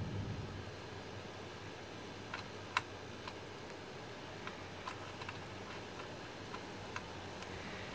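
Faint, irregular small clicks and ticks from a motorcycle swingarm spool slider being threaded in by hand, with one sharper click about three seconds in, over a low steady hiss.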